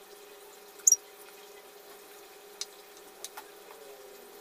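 Faint cooking sounds as pieces of duck are added by hand to a wok of green chili sauce, over a steady low hum. About a second in there is a short, sharp high-pitched chirp, the loudest sound, followed by two light clicks.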